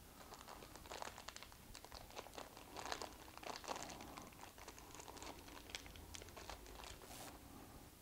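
Faint crinkling of a small plastic parts bag and light, irregular clicks as fingers pick out and handle tiny ignition-lock wafers.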